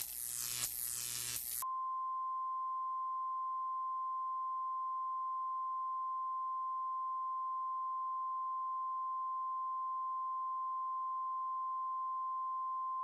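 A dense electronic noise texture with falling sweeps, cut off abruptly about a second and a half in by a steady pure tone near 1 kHz, like a test tone, held unchanged.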